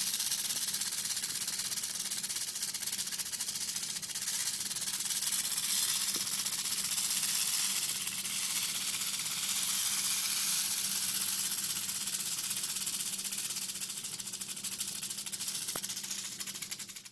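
Rattlesnake shaking its tail rattle in a continuous high, hissing buzz, steady throughout with slight swells in loudness, the defensive warning of a disturbed snake.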